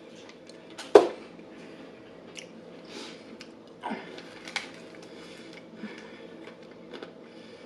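Close-miked chewing and biting of crispy fried chicken: wet crunching and mouth sounds, with one loud sharp sound about a second in and a few smaller ones later.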